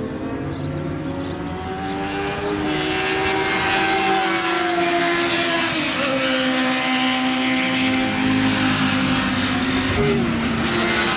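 Racing motorcycle engines running at high revs as bikes pass down the track straight. Several engine notes overlap, and the pitch falls as each bike goes by. The sound grows louder from a few seconds in.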